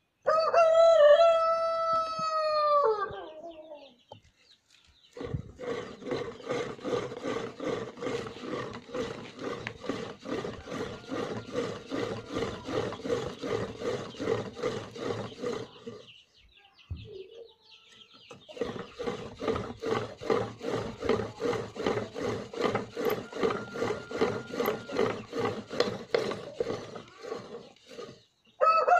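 A rooster crows loudly just after the start, and again right at the end. In between, a homemade wooden pump drill with a flywheel is pumped in a steady rhythm of strokes, its bit working into an iron sheet. The drilling stops for about two seconds past the middle.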